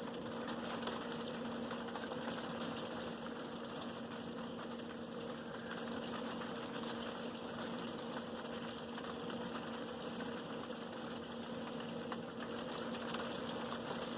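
A steady mechanical hum from a small motor or fan, with a low droning tone and a few faint scattered ticks over it.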